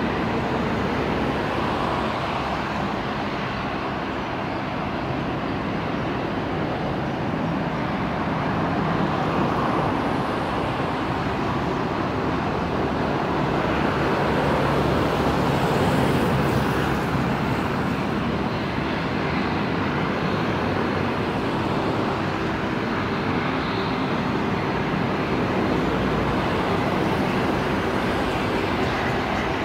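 Bombardier Global 7500 business jet's twin GE Passport turbofans running as it comes in to land, touches down and rolls out, a steady jet noise that grows a little louder about halfway through, around touchdown.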